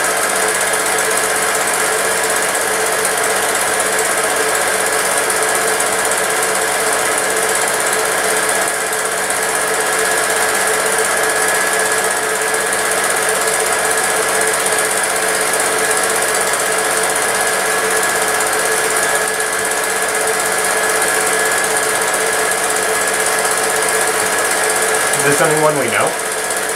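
Home movie film projector running steadily, a constant motor whirr with the fast rattle of the film transport.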